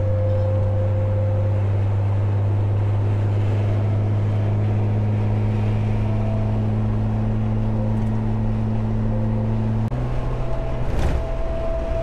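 Roof-mounted light bar on a Jeep Wrangler TJ humming and whistling in the wind at road speed, heard inside the cabin over road noise: a steady low hum with a fainter high whistle. About ten seconds in, both tones jump up in pitch, followed by a brief rush of noise.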